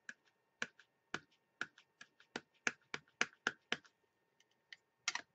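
Ink pad tapped again and again onto a clear acrylic-mounted rubber stamp to ink it: a run of light, sharp plastic taps, about two a second and then quicker, with a firmer double tap near the end.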